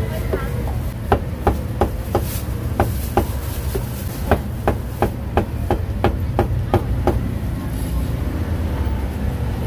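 Heavy meat cleaver chopping roast pork belly on a thick round wooden chopping block: a quick, regular run of sharp knocks, about three a second, that stops about seven seconds in. A steady low hum of street traffic runs underneath.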